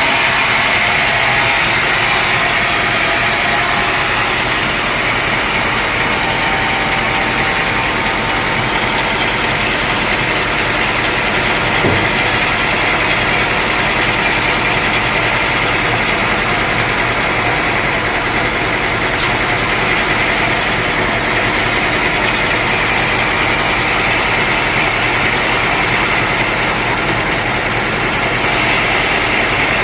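Sawmill saw machinery running steadily at a constant loud level, with one brief knock about twelve seconds in.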